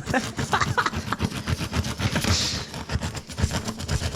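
Tyre puncture reamer being worked in and out of a hole in a tyre: a rapid, irregular run of rasping clicks and scrapes as the tool is pushed through the rubber.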